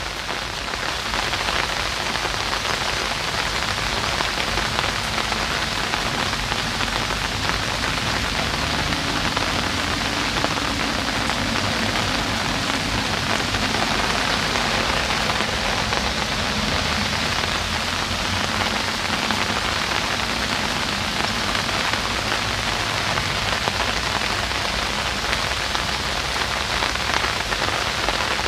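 Steady rain falling on a reed bed and a wooden deck, an even, dense patter of drops with no letup.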